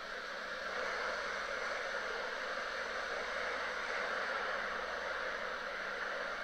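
Steady hiss of radio static, a radio between stations, slightly louder from about a second in.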